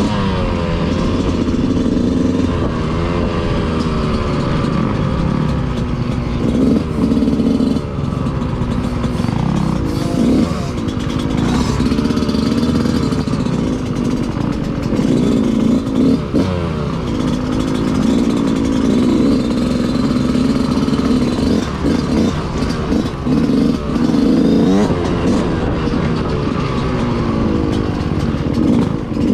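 Dirt bike engine being ridden hard, its pitch rising and falling over and over as the throttle opens and closes and it shifts gears, with some clattering.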